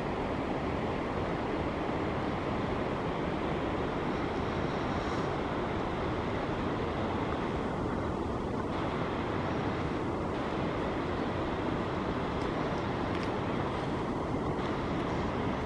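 Wind blowing across the microphone outdoors, a steady low rush without a break.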